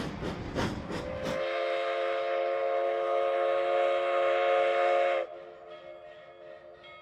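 Steam locomotive chuffing in rhythmic exhaust beats, then its steam whistle sounding one long blast of several tones together about a second in; the blast cuts off after about four seconds, leaving fainter lingering tones.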